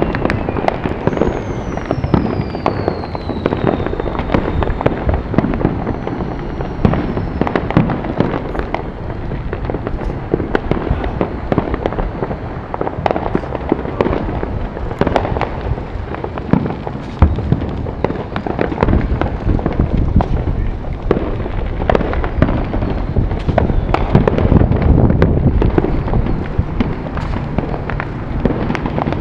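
Many fireworks and firecrackers going off across the neighbourhood at once: a continuous, dense barrage of pops, crackles and bangs, with a long falling whistle about a second in.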